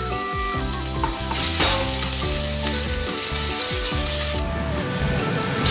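Minced garlic sizzling in hot oil in a stainless-steel saucepan, stirred and scraped around the pan bottom with a wooden spoon.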